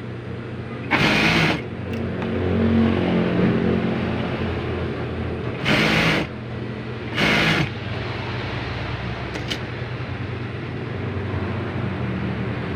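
Industrial lockstitch sewing machine stitching in three short bursts, one about a second in and two close together around six and seven seconds, over a steady low hum.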